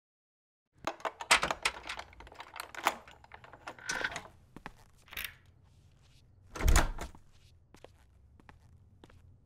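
A door being handled and opened: a quick run of clicks and knocks from the latch and handle, then a single heavy thud about seven seconds in, over a faint low room hum.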